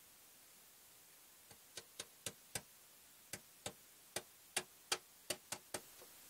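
A series of about a dozen short, sharp clicks at uneven spacing, starting about a second and a half in, over a quiet background.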